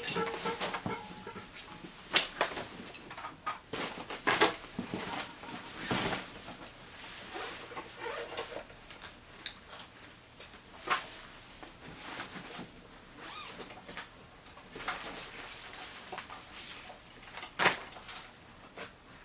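Gear being handled and packed by hand: irregular clinks, knocks and rustling, with a few sharper knocks standing out, the loudest near the end.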